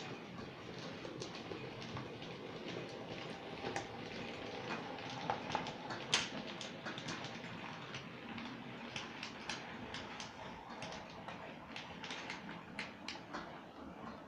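Model train with tank wagons running on a layout: wheels clicking irregularly over rail joints and points, over a steady hum from the running train.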